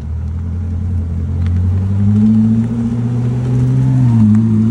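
Close, loud engine of a car running under load, its pitch climbing about two seconds in and dropping briefly just after four seconds.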